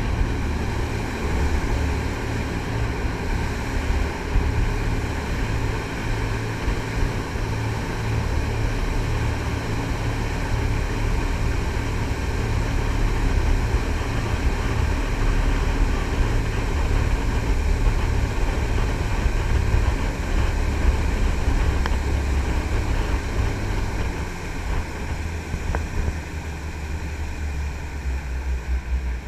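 Triple-diesel jet boat running steadily under way: a continuous low engine drone with the rush of water around the hull. Near the end the low drone eases slightly.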